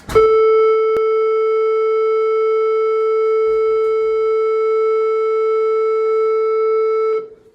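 School class-change bell played as a single steady tone through a Valcom intercom speaker, held for about seven seconds and then cut off.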